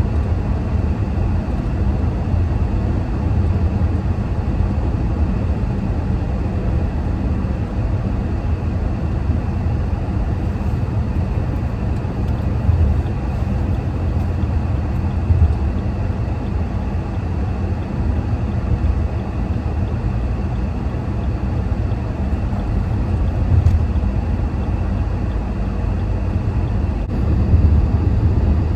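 Steady low rumble of a car driving along a road, with engine and road noise and no changes.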